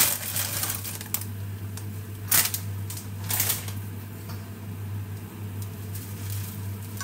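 Plastic packet of dried pancit canton noodles crinkling and rustling in several short bursts over the first three or four seconds as the noodles are shaken out into a pan of stock, then quieter handling of the noodles with tongs. A steady low hum runs underneath.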